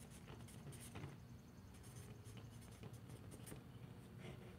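Felt-tip marker writing on a paper notepad: a run of faint, short scratchy strokes as words are written.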